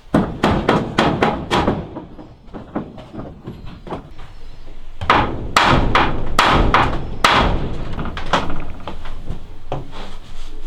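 Hammer blows on wood in two quick runs of strikes, about three or four a second, with lighter taps between.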